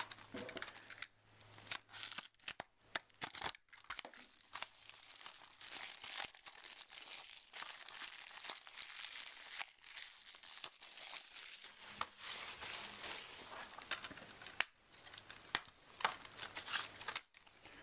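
Clear plastic shrink wrap being torn and peeled off a Blu-ray case: continuous crinkling and crackling with many sharp snaps, pausing briefly a few times.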